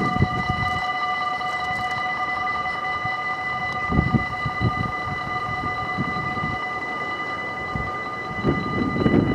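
Dutch level-crossing warning bell ringing steadily as the half-barriers come down, signalling an approaching train. A gusty low rumble runs underneath, strongest about four seconds in.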